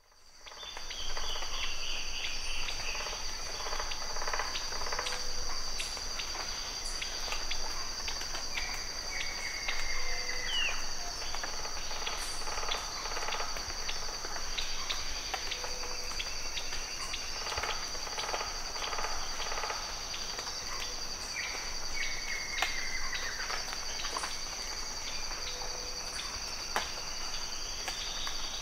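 Rainforest ambience: cicadas stridulating as a steady, high double drone, with scattered sharp knocks from an unidentified animal making hammering noises. Now and then a call slides down in pitch. The ambience fades in at the start.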